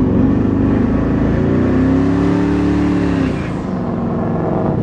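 Turbocharged 5.3-litre V8 of a 1968 Pontiac GTO heard from inside the cabin, pulling under acceleration. The engine note climbs, holds for a couple of seconds, then drops away about three and a half seconds in as the revs fall.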